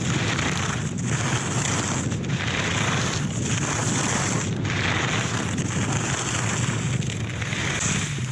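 Head i.Race Pro race skis carving on hard-packed snow, their edges scraping in a steady rush mixed with wind on the microphone. The scrape swells and eases roughly once a second as each turn is linked to the next.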